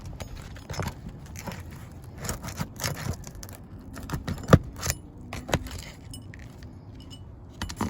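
A metal roof snake prying and scraping under an asphalt shingle to pull out a roofing nail, giving irregular scrapes and clicks, with one sharp knock about halfway through.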